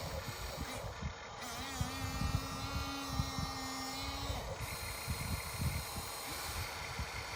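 RC excavator's small electric hydraulic pump motor whining at a steady pitch for about three seconds, then stopping, among irregular low knocks and rustles of the machine working in dirt.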